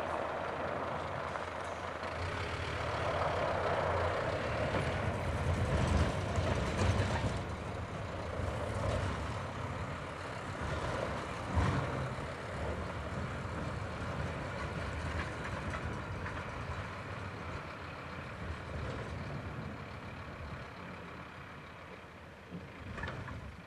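Scania P270 truck's diesel engine running as the snow-plough truck manoeuvres slowly, a little louder a few seconds in, with a short sharp noise about halfway through.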